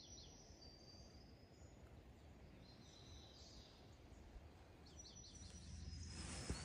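Faint birdsong: quick series of high notes and thin whistles over a low steady rumble. Near the end, a louder rustling and one sharp knock.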